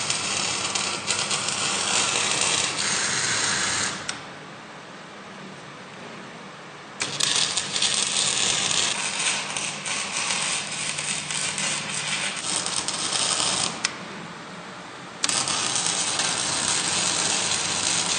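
Stick (arc) welding: the welding arc crackling steadily. The arc breaks off about four seconds in, is struck again some three seconds later, and stops again for a second or so near the end before restarting.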